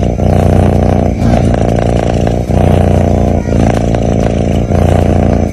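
Sleeping cat snoring: a loud, steady rumble that breaks off briefly about once a second.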